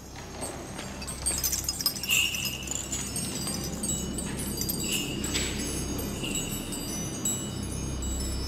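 Tinkling chimes: many short, high ringing notes scattered throughout, over a low steady hum.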